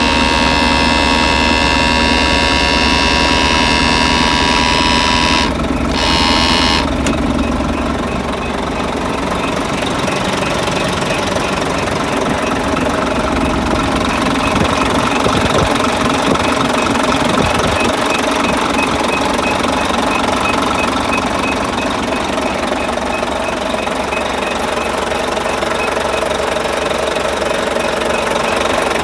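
A steady hum with several high whining tones for the first six seconds or so. After a brief break it gives way to a UD Quon truck's diesel engine idling with the cab tilted, a steady clatter with a light, regular ticking running through it.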